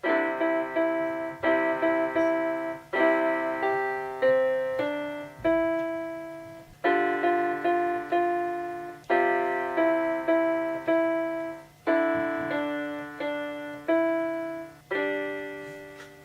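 Casio SA-76 mini keyboard playing its piano voice through its own small built-in speakers: a series of chords, each struck and then fading, about one every second or so. The sound is thin, with hardly any bass.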